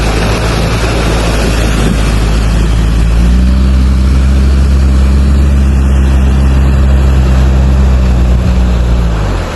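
All-terrain vehicle's engine running under load, getting louder and a little higher about three seconds in, then dropping away near the end, over a steady rushing noise.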